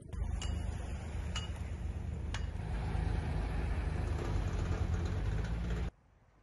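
A heavy six-wheeled crane truck's engine running steadily close by as the truck drives past, with three sharp metallic clinks in the first couple of seconds. The sound cuts off abruptly near the end.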